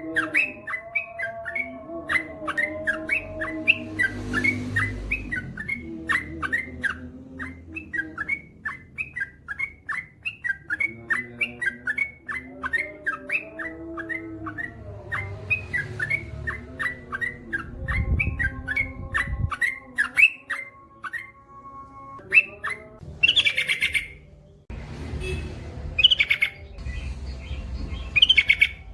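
Yellow-vented bulbul (trucukan) singing a long unbroken run of short chirps, about five a second, with louder, harsher calls near the end.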